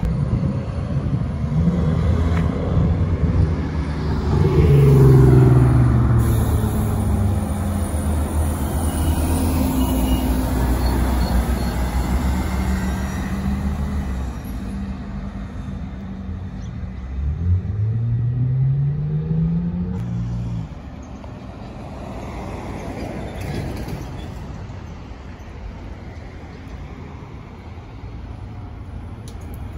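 City buses' engines running and passing on the road: a falling engine note about five seconds in, then a rising note as a bus accelerates from about 17 seconds, cutting off suddenly near 20 seconds. After that, quieter road traffic as another bus comes in.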